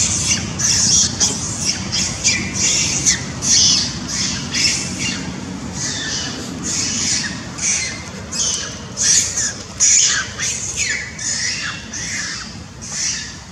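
Macaques screaming: a rapid run of shrill, short screeches, some falling in pitch, about two a second, dying down near the end.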